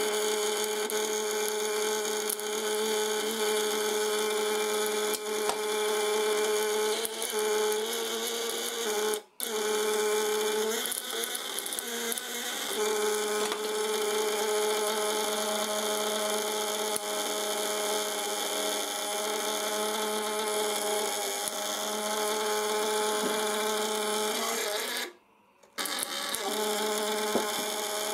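Homemade vibrating contact breaker with widia steel (tungsten-carbide) points on a fish-shocker coil, run from a 12-volt battery, buzzing steadily while it drives a test bulb. It stops briefly about nine seconds in and again for about a second near 25 seconds, and its pitch wavers for a few seconds after the first stop.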